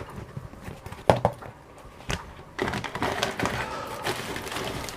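Parcel packaging being handled: a few light knocks, then crinkling and rustling from about halfway.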